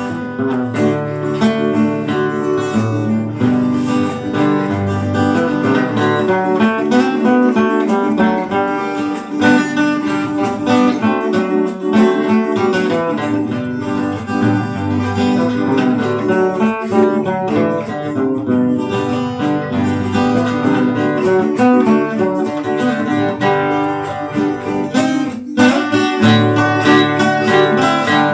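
Two acoustic guitars playing an instrumental piece: a lead guitar solo of quick plucked notes over a second guitar's strummed accompaniment.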